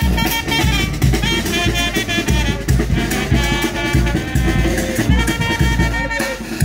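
Street brass band with a sousaphone playing a tune with a steady drum beat, the horns and drum striking up together at the start.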